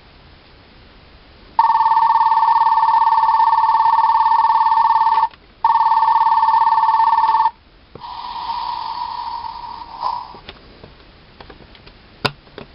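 Bandai Narikiri Sound Densha no Untenshi toy playing its station departure bell: an electric bell rings loudly for nearly four seconds, breaks off briefly, then rings about two seconds more. A quieter tone follows, then a few sharp clicks near the end.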